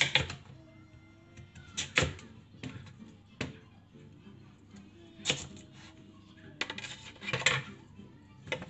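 Chef's knife slicing through a raw sweet potato and striking a wooden cutting board: single sharp chops every second or two, then a quick run of chops near the end.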